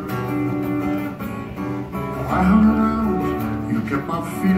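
Acoustic guitar played live in an instrumental passage with no singing, held notes and chords changing as it goes.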